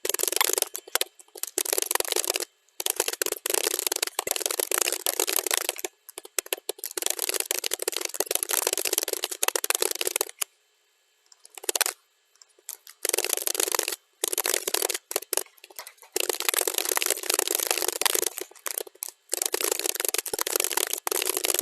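Computer keyboard typing, sped up to double speed, so the key clicks run together in a dense rapid patter. The typing breaks off briefly a few times and stops for about a second and a half near the middle.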